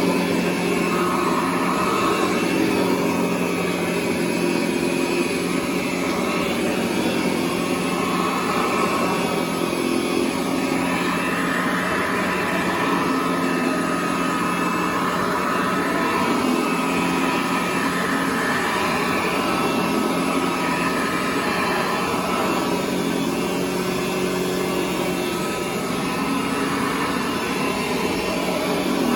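1929 Hoover 725 upright vacuum cleaner running steadily, a motor hum with a steady whine over it.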